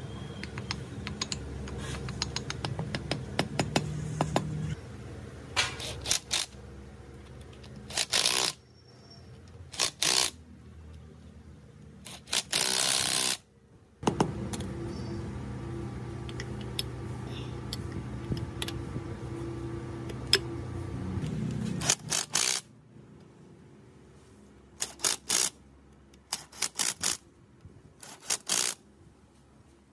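Workshop reassembly of an engine crankcase: metal parts and hand tools clinking and scraping over a steady low hum that drops away about two-thirds through. Near the end, a cordless impact wrench drives bolts in several short bursts.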